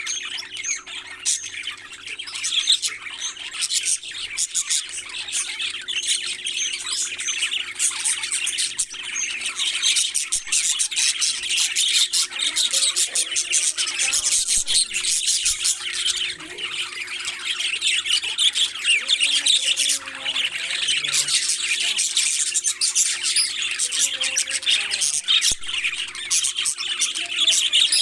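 Many parrots chattering, chirping and squawking without a break, with a steady low hum underneath.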